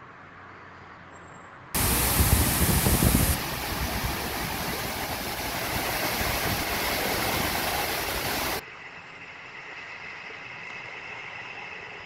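Artificial waterfall pouring down a rock face into a pool: a loud, steady rush of falling water that starts abruptly about two seconds in and cuts off abruptly a little before nine seconds, with a quieter hiss before and after.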